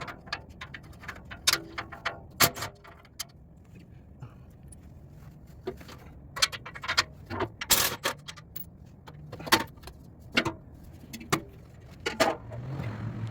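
Metal hand tools clinking and clattering at irregular intervals, the sound of sockets and a socket extension being picked out and handled.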